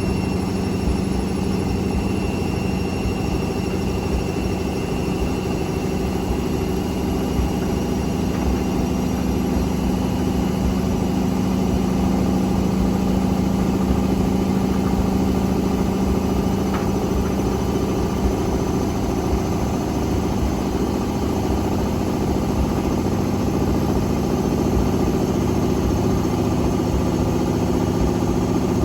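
Hotpoint Extra WMXTF942 washing machine in its rinse spin, the drum spinning at a steady speed with a motor whine over an uneven low rumble. The load is badly out of balance.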